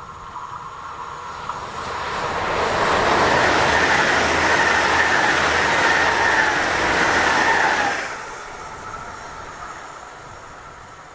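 ČD class 681 Pendolino electric tilting train passing at speed: a rushing noise of wheels and air that swells, holds loud for about five seconds and drops off sharply as the end of the train goes by, with a faint whine falling in pitch just before the drop.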